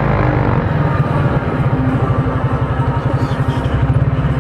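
Child-sized sports car's small 500 cc petrol engine idling with a rapid, even pulse, settling down from a higher steady note right at the start as the car comes to a stop.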